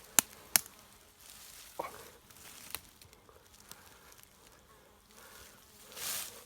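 Quiet outdoor ambience with two sharp clicks in the first second and a short rustle near the end.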